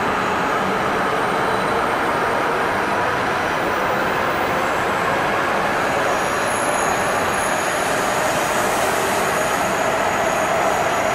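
E5 series Shinkansen train, coupled to an E6, running along a station platform track: a continuous rush of wheels and air from the passing cars, with a faint high ringing tone joining in over the second half and the noise growing slightly louder near the end.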